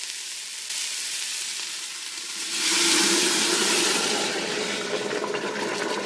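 Shrimp stock poured into a hot stockpot of sautéed onions and celery, sizzling. About two and a half seconds in, the sizzle swells into a loud hiss for a second or so as more liquid hits the browned pot bottom, then eases off.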